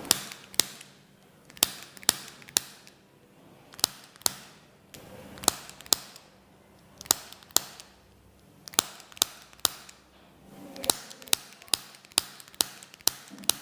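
Spring-loaded chiropractic adjusting instrument firing. It gives about twenty sharp clicks, mostly in quick groups of two to four about half a second apart.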